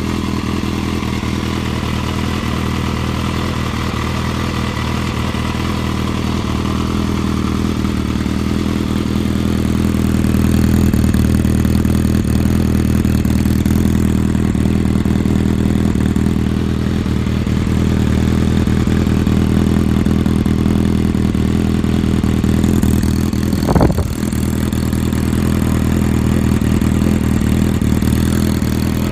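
Yamaha XJR400's air-cooled inline-four engine idling steadily through a WR'S aftermarket silencer, with one short sharp sound near the end.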